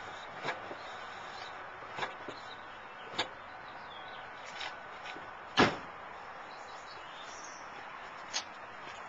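Scattered light clicks and knocks, with one much louder thump about five and a half seconds in that sounds like a car door shutting.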